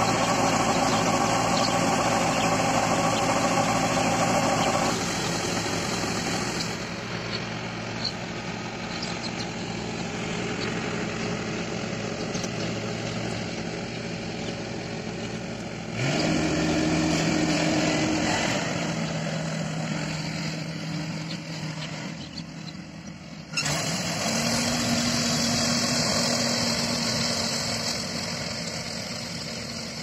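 Yanmar combine harvester running, a steady engine and machinery drone. The sound shifts abruptly a few times, with the engine note steady between the changes.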